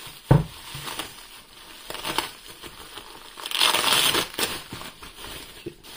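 Bubble wrap and a plastic bag crinkling and rustling as they are pulled and crumpled off a packaged device. There is a single thump about a third of a second in, and the crinkling is loudest a little past halfway.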